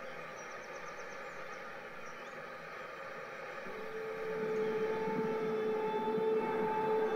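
N gauge model passenger train running past on the layout track, its wheels giving a steady rumble with faint regular clicking. A steady whine comes in about four seconds in and the sound grows louder toward the end.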